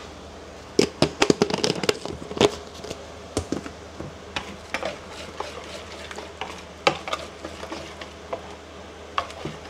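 Metal wire whisk stirring thick flour batter in a plastic bowl, the wires clicking and tapping irregularly against the bowl. The taps come thickest about a second in, then more sparsely.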